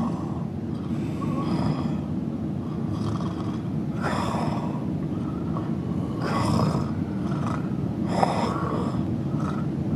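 A man snoring softly with his mouth open: a rasping breath that swells about every two seconds over a steady low rumble.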